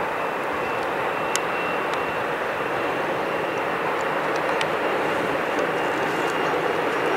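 Distant freight train hauled by a heavy diesel locomotive: a steady drone of the engine mixed with the rumble of the wagons rolling, with a faint high steady tone and a couple of light clicks.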